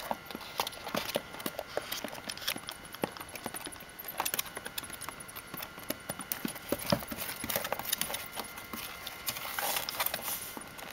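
A hedgehog's feet and claws tapping and clicking on the hard plastic floor of a bin as it scurries about, in an uneven run of several quick ticks a second.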